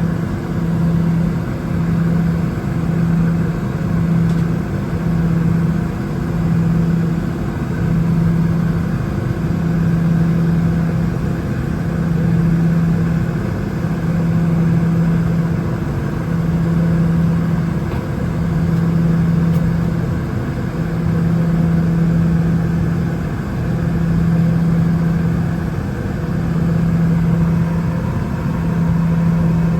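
Boeing 717-200's rear-mounted Rolls-Royce BR715 turbofan engines running, heard from inside the rear cabin: a steady drone with a low hum that swells and fades about every two seconds.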